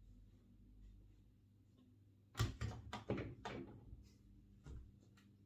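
An interior door being opened: a sudden cluster of clicks and knocks from the handle and latch about two seconds in, then one more knock a couple of seconds later.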